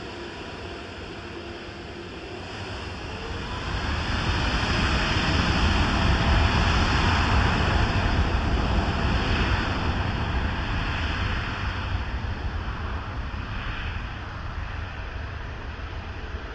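Jet airliner's engines passing close by: a steady jet roar with deep rumble that swells over a couple of seconds, holds loudest for several seconds, then slowly fades.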